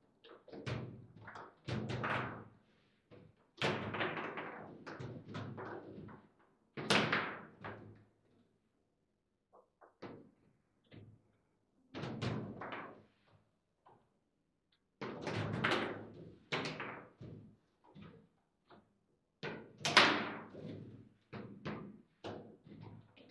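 Table football (foosball) game in play: the ball, players and rods knocking and clacking in fast clusters of sharp hits, sparser for a few seconds in the middle, with the loudest hit about three quarters of the way through.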